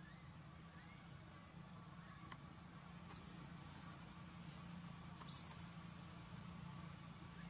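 Steady high-pitched drone of insects in forest trees, with three short, very high squeaky calls between about three and six seconds in.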